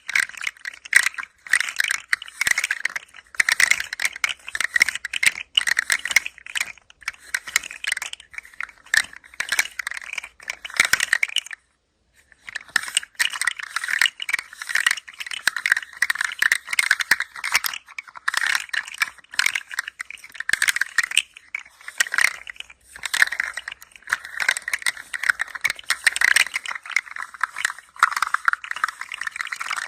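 Handheld toy rattling as it is moved, a dense run of small clicks with a pause of about a second about 12 seconds in.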